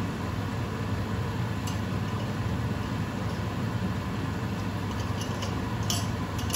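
Steady low hum and hiss from a pan of sliced vegetables cooking on a gas hob, with a few faint ticks.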